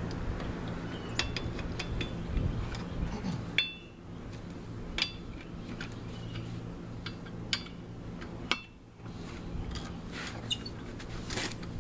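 Socket wrench and lug nuts on a steel wheel clinking as the nuts are worked off: scattered sharp metallic clinks, some ringing briefly, about one every second or two.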